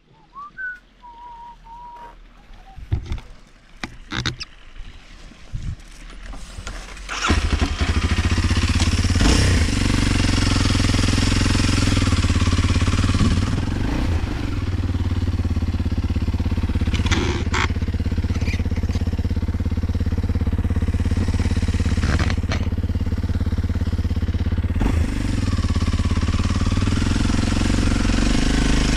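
Scattered knocks and clicks, then a Kawasaki KLX 230's single-cylinder four-stroke engine starts about seven seconds in and runs steadily.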